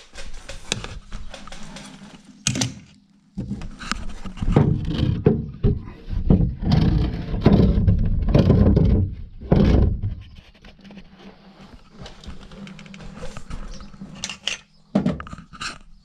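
Knocks, scuffs and rustling as a person climbs through a hatch and crawls along a cramped crawl space, with heavy handling noise on the microphone; the noise is loudest and most continuous through the middle stretch.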